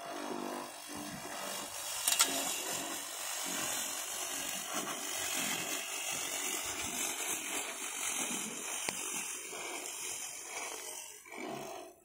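Homemade lawn mower driven by a converted electric water-pump motor, running steadily as it is pushed over the grass. There is one sharp click about two seconds in, and the sound drops away just before the end.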